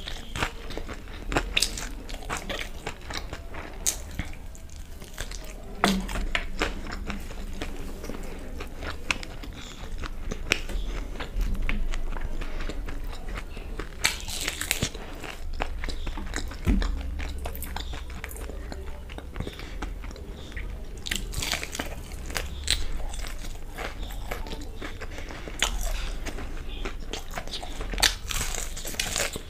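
Close-miked biting and chewing of fried chicken lollipops: crunchy bites into the coated chicken and steady chewing, with many irregular small clicks and crackles.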